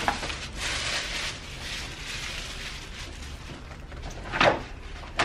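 Tissue paper rustling and crinkling as it is pulled out of a paper gift bag, busiest in the first couple of seconds, with one short, louder crackle near the end.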